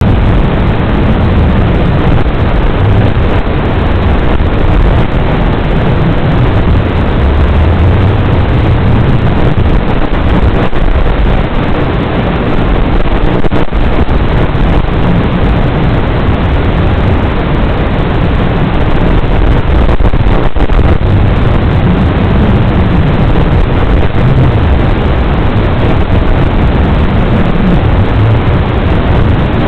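Loud, steady static hiss from an analog FPV video receiver's audio channel, with a rumbling low end and no distinct motor tones.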